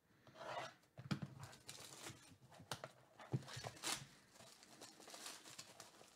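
Hands crinkling and tearing the plastic shrink wrap off a cardboard box, irregular crackling with a few knocks as the box is handled.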